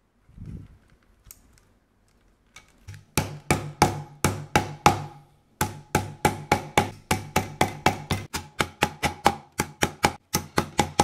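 Rapid mallet blows on a metal rivet setter, setting rivets through thick leather, about three to four sharp strikes a second with a faint metallic ring. The blows start about three seconds in and pause briefly about halfway through.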